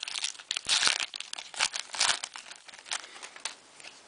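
Trading-card pack wrapper crinkling and cards being handled, in a run of sharp crackles, loudest just before one second in and again around two seconds in.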